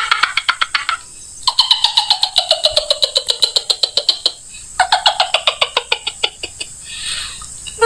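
A bird's rapid trilling call, falling in pitch, given three times with short gaps.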